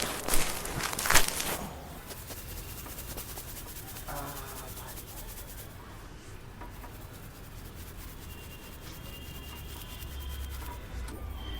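Hands rubbing briskly over a patient's body, two strong rubbing strokes in the first second and a half, then only low steady background noise.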